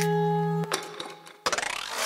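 Background music: a held chord that stops about two-thirds of a second in, a short fade to near silence, then a fast run of clicks near the end.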